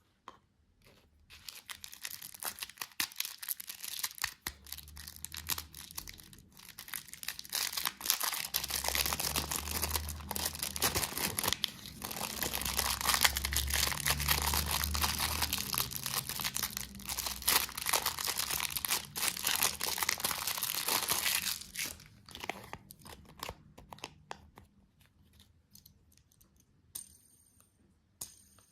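Candy packaging being torn open and crinkled close to the microphone. A dense crackling runs for about twenty seconds, then thins to scattered clicks near the end.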